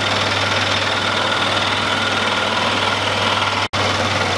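Benchtop scroll saw running at full speed, its blade stroking up and down as it cuts a tight curve in a small part, making a steady hum with a faint whine over it. The sound breaks off for an instant near the end.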